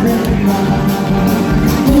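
Live band music with a steady beat: held pitched notes over regular drum and percussion strokes.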